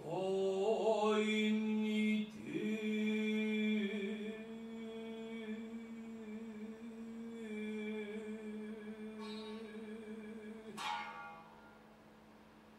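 Biwa-gatari chanting: a male voice holds one long, steady chanted note for about ten seconds, breaking and sliding back in once about two seconds in. Near the end a sharp biwa stroke rings out and the sound dies away.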